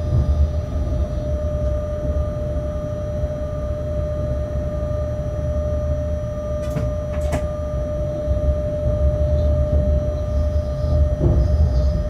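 Locomotive cab noise at low shunting speed: a steady low rumble with a constant hum. A little past halfway, two sharp clacks about half a second apart, as the wheels cross a rail joint or set of points.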